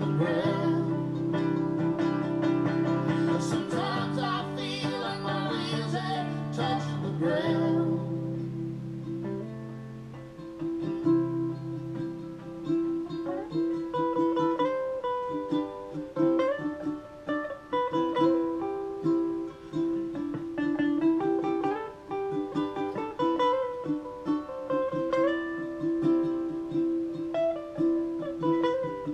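A ukulele and a guitar playing an instrumental passage of a country-folk song; from about ten seconds in the ukulele takes a plucked lead line over the guitar's chords. Heard through a television's speaker.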